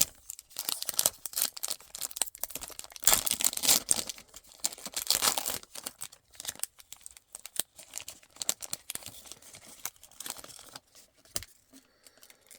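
A trading card pack wrapper being torn open and crinkled: a run of quick tearing and rustling, loudest a few seconds in, thinning to lighter rustling near the end.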